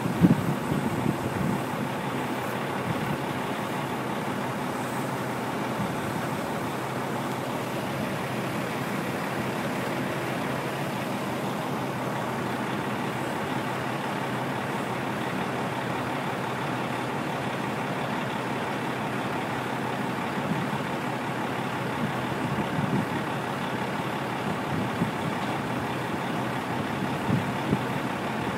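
Crane's engine running steadily while it lifts and swings a heavy concrete tank, a continuous low mechanical drone, with a few brief louder knocks near the start and near the end.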